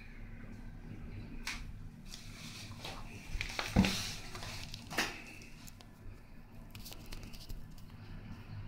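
Handling noise from the recording phone being moved: rubs and clicks, with a sharp knock a little under four seconds in and a smaller one about a second later, over a steady low hum.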